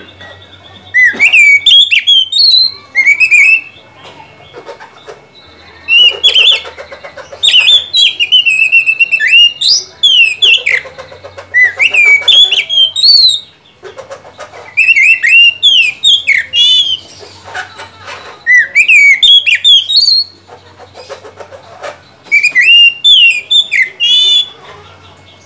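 Oriental magpie-robin (kacer) singing a loud, varied whistled song in repeated bursts of one to four seconds, full of quick rising and falling notes, with short pauses between phrases.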